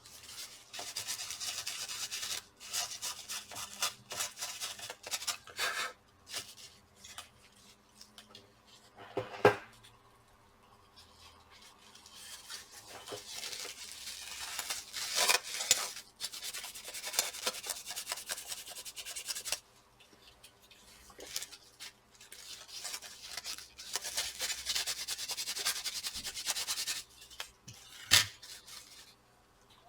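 Rubbing and scrubbing of an alcohol-wetted wipe cleaning dried old thermal paste off laptop cooling parts, in three long stretches of quick back-and-forth rubbing. A sharp knock comes about nine seconds in, and a click comes near the end.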